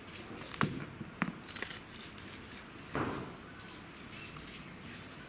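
Hushed hall ambience with a few sharp clicks about a second in and one louder short sound about three seconds in that fades quickly.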